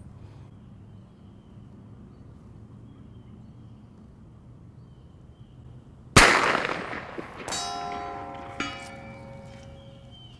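A single 9mm shot from a Smith & Wesson 929 revolver, fired double action, about six seconds in. A little over a second later a steel target plate rings with a clear metallic pitch, clangs once more shortly after, and fades out.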